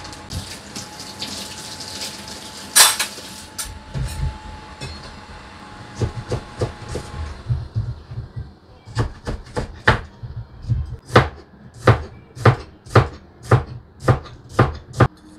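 Tap water running into a sink with a few clatters of dishes, then a kitchen knife chopping on a wooden cutting board in steady strokes, about two a second.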